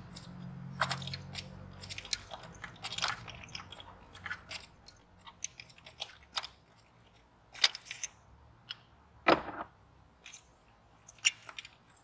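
Irregular metallic clicks and short scrapes of a 27 mm socket and extension working a Honda knock sensor loose from the engine block by hand, with two sharper knocks in the second half.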